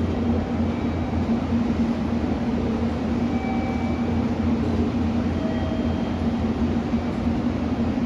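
Steady hum of a stationary JR Kyushu 883 series electric limited-express train standing at the platform, its on-board equipment running.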